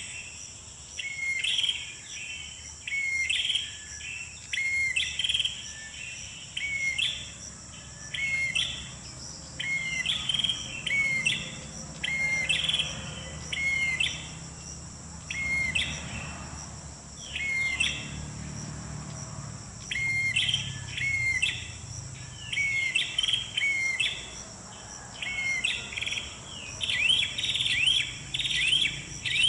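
Prinia (prenjak) calls played as a trapping lure: short chirping phrases about once a second, with two brief pauses, over a steady high drone of insects.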